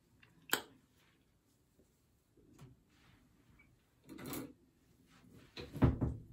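Handling noise from the phone camera being moved and set: a sharp click about half a second in, a short rustle a little after four seconds, and a heavier thump near the end.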